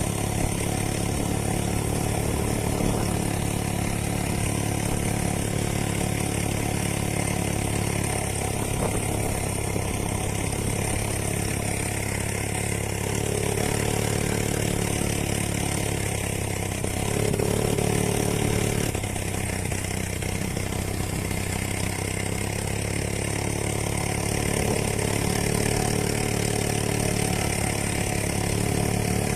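Homemade moped's chainsaw engine, a small two-stroke, running steadily, growing louder for a couple of seconds a little past halfway.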